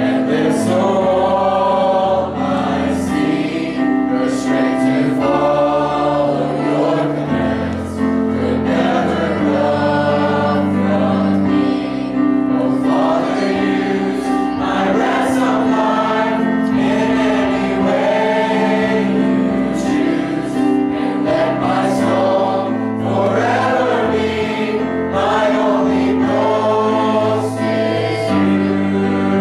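Choir singing a gospel song over instrumental backing, with sustained low chords and regular drum and cymbal hits.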